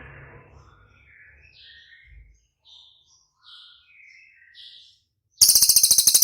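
Cililin songbird calling: a string of short, varied chirps and whistles, then a little over five seconds in a much louder, very rapid rattling run of repeated notes, the 'tembakan' (shooting) call that keepers prize.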